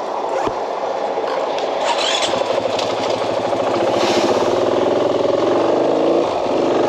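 KTM 500 dual-sport motorcycle's single-cylinder engine running and pulling away, getting steadily louder and slightly higher in pitch as the bike picks up speed.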